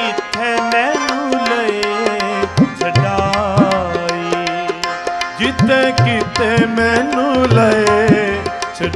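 Gurbani kirtan accompaniment: tabla playing a steady rhythm, its deep bass-drum strokes swooping upward in pitch, under a continuous melodic line, in a break between sung lines of the shabad.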